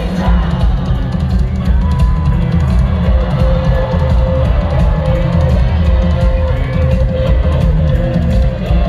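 Rock band playing live through a stadium PA, loud and continuous, with a driving drum kit and heavy bass drum under electric guitar.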